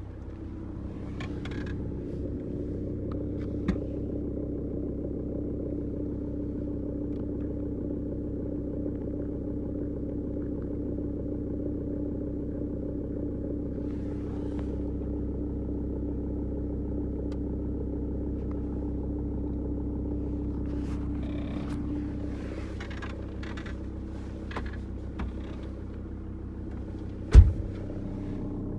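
VW T4's AHY 2.5 TDI five-cylinder diesel engine running steadily with a rumbling, clattering noise (Poltern) that is the fault being recorded. The engine note shifts a little over two-thirds of the way through, and near the end there is a single sharp, loud knock.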